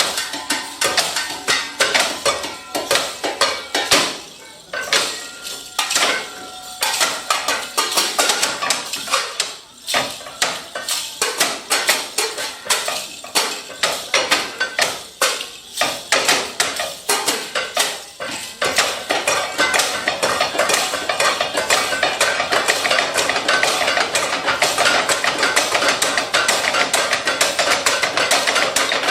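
Metal objects and tools struck as percussion: a run of sharp metallic strikes and clanks, some briefly ringing, that about two-thirds of the way through becomes a dense, continuous clatter.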